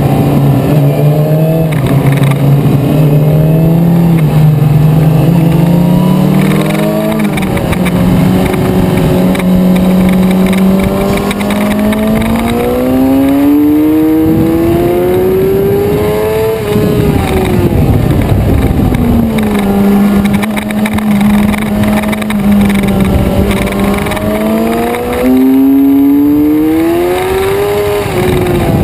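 Suzuki sport motorcycle engine heard from on board, the pitch holding steady, then climbing hard under acceleration and dropping sharply about halfway through as the throttle is shut. It holds steady again, climbs once more and drops near the end, over steady wind noise.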